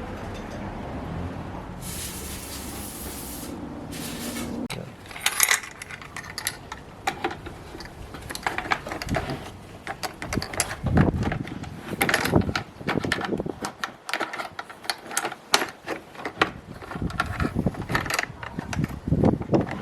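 Irregular clicks, knocks and rattles of parts and hand tools being handled while a heater core is fitted back into its housing, with a brief hiss about two seconds in.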